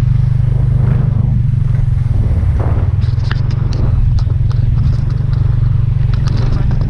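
An engine running steadily with a low drone, with scattered light clicks over it from about halfway in.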